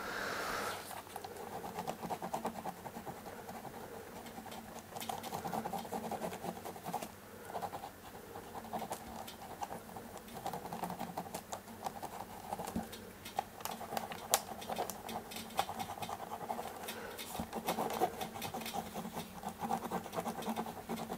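An inkless ballpoint pen traced firmly over a photo print laid on a stretched canvas. Irregular scratching and rubbing strokes come and go with small clicks, as the pen pushes the transfer paper's pigment through onto the canvas.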